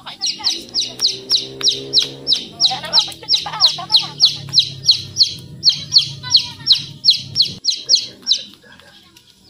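A bird chirping rapidly and loudly, a short falling note repeated about four times a second, stopping shortly before the end. A low steady hum runs underneath and stops about three-quarters of the way through.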